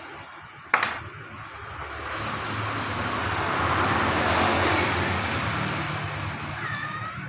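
A vehicle passing on the road, its noise swelling and then fading, over a steady low hum. A sharp click sounds just under a second in.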